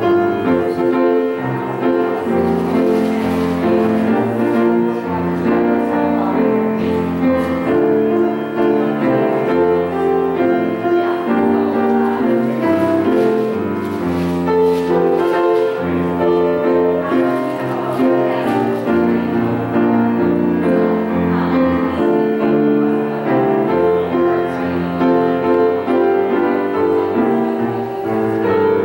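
Piano music: a steady flow of notes and chords played without a break.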